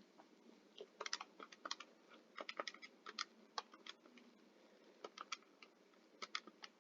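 Computer keyboard typing: faint, irregular keystrokes in short runs.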